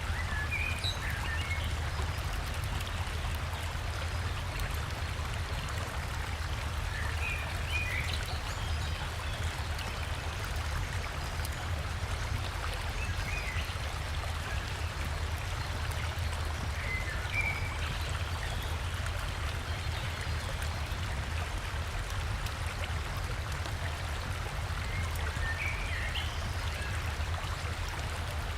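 River water rushing steadily, with a forest bird chirping briefly about five times over it.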